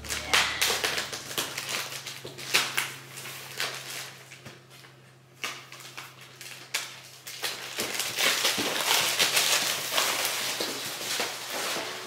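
Clear plastic wrap crinkling and rustling as it is pulled and crumpled off a cardboard box, in bursts of crackling with a short lull about halfway through.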